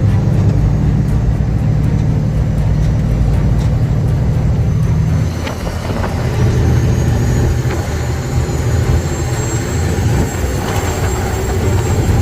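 Heavy truck's diesel engine running, a steady low drone that drops and changes character about five seconds in, with a faint high whine over it afterwards.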